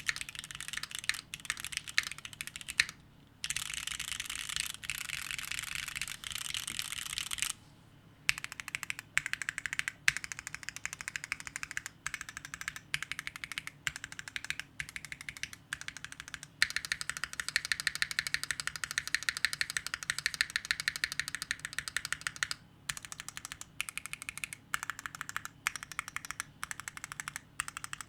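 Typing on a Neo60 Core mechanical keyboard fitted with Gateron Khonsu linear switches, which have POM housings. The keystrokes come in dense, fast runs, broken by a few short pauses.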